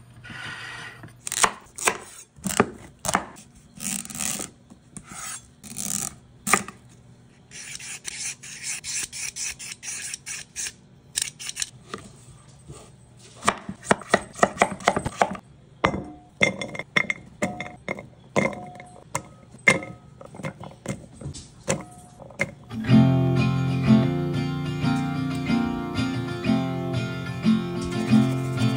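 Chef's knife chopping butternut squash on a wooden cutting board: a series of sharp separate chops, with a stretch of dense rasping scraping a few seconds in. About three quarters of the way through, louder music with sustained tones takes over.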